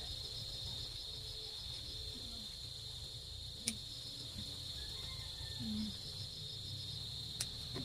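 Crickets trilling steadily in a high, unbroken band, with two sharp clicks, one about three and a half seconds in and another near the end.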